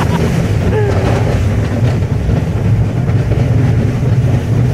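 Fairground thrill ride running, a loud steady low rumble with mechanical clatter, and a brief rising-and-falling voice about a second in.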